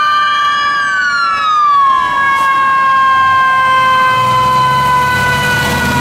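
Fire truck sirens sounding. One tone rises slightly and then winds down slowly, while other steady tones hold. The truck's engine rumbles in about four seconds in as it pulls away.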